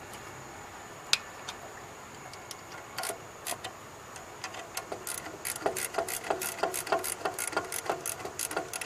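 Hand ratchet turning a bolt on the alternator mount: a single sharp metallic click about a second in, a few scattered clicks, then a steady run of ringing clicks about five a second.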